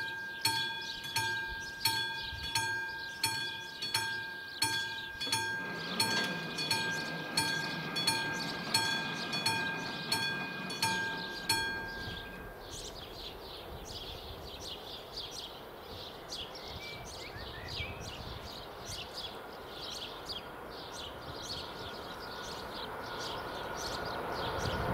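Level-crossing warning bell, a classic mechanical bell on AŽD 71 flashing-light signals, striking evenly a little under twice a second, with the barrier motors humming as the booms lower from about six seconds in. The bell stops about halfway through, leaving faint quick ticking, and an approaching train's rumble starts to rise near the end.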